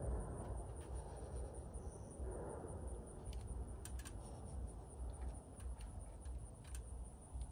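Quiet outdoor field ambience: a steady low rumble with a continuous high insect trill, and a few faint light clicks from about three seconds in and again near the end.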